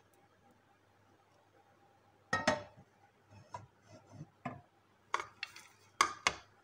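Wooden spatula knocking and scraping against a pan and a plate as roasted corn kernels are emptied out of the pan onto the plate. The sharp knocks come in irregular groups after a quiet start, loudest as a pair about two and a half seconds in and another pair near the end.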